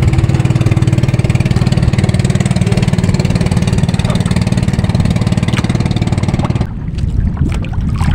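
Small engine of a bangka outrigger boat running steadily with a fast, even putter, then cutting off abruptly near the end, leaving only lapping water.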